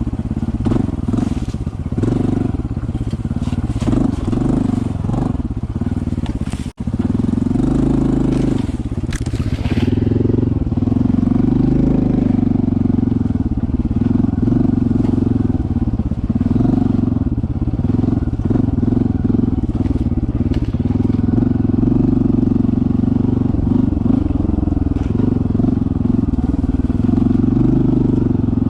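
Honda CT125's single-cylinder engine running steadily as the bike rides along a trail, with a momentary cut-out about seven seconds in.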